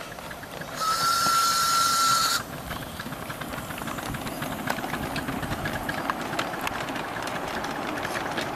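Live-steam model NSWGR Standard Goods class locomotive sounding its steam whistle once, a single steady note with a hiss of steam lasting about a second and a half. The train then pulls away, with a quick run of exhaust beats and wheels clicking on the rails.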